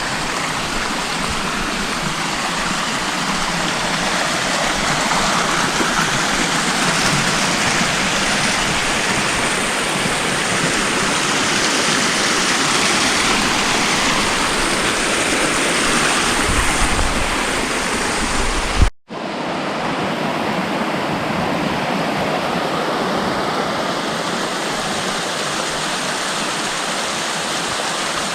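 Steady rushing of flowing water from a mountain stream or cascade. About nineteen seconds in, the sound drops out for a split second and then resumes.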